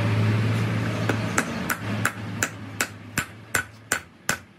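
Hammer striking metal in quick, even taps, nearly three a second, beginning about a second in. Under it a steady low drone fades away toward the end.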